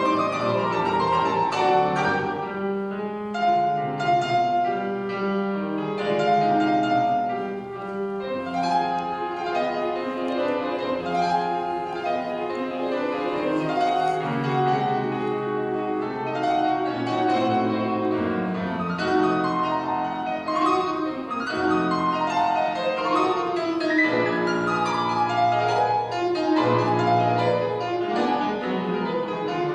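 Piano duet playing classical music: a continuous, dense flow of overlapping piano notes.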